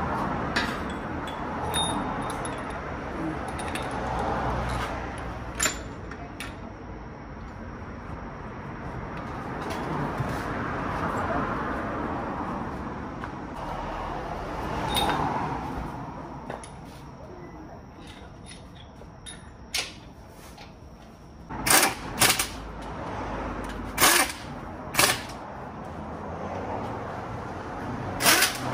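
Metal tools and parts clinking and knocking during work on the underside of a car, as its limited-slip differential is fitted. Scattered light clicks at first, then a string of sharp metallic clanks over the last several seconds.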